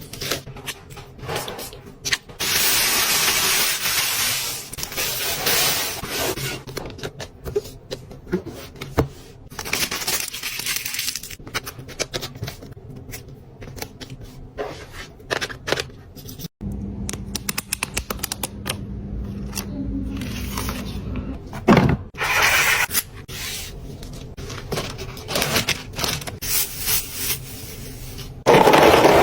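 Fingernails tapping quickly and scratching on product packaging: dense runs of sharp clicks, broken by stretches of rubbing and crinkling noise. About halfway through, the sound cuts off abruptly and a low steady hum comes in underneath the tapping.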